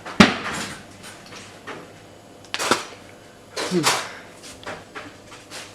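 A sharp knock, then a scatter of clicks and bumps from objects being handled, with a brief voice-like sound about four seconds in.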